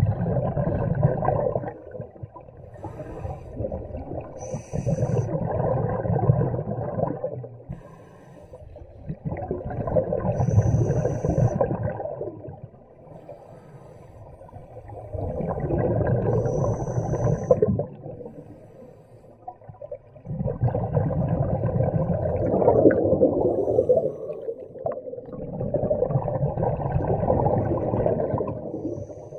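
Scuba diver breathing through a regulator underwater: exhaled bubbles gurgle past the microphone in surges of two to four seconds, six times about five seconds apart, with quieter gaps between.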